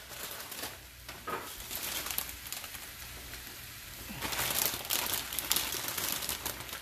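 Plastic bag of spinach crinkling as fresh leaves are tipped from it into a frying pan, the crinkling growing louder about four seconds in, over a soft steady sizzle from the pan.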